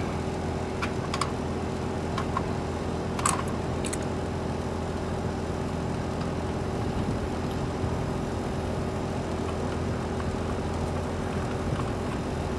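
3-ton Ducane R-410A air-conditioning condensing unit running: a steady compressor and fan hum. A few light metal clicks in the first four seconds as brass service-valve caps are unscrewed with an adjustable wrench and set down.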